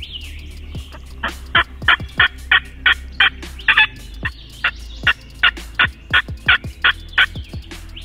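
Eastern wild turkeys calling at dawn: a long run of short, evenly spaced notes, about three a second, starting about a second in and stopping near the end.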